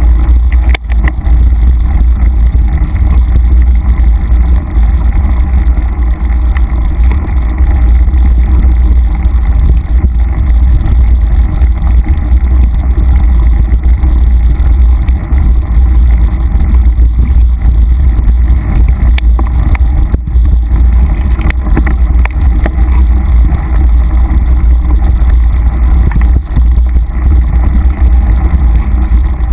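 Steady low rumble of wind and vibration on a handlebar-mounted action camera's microphone as the mountain bike rides a rough forest singletrack, with scattered clicks and rattles from the bike going over roots and bumps.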